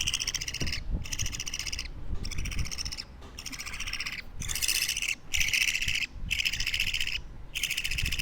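Two-week-old budgerigar (parakeet) chick calling: a steady run of about eight raspy, buzzy cheeps, roughly one a second, each lasting most of a second.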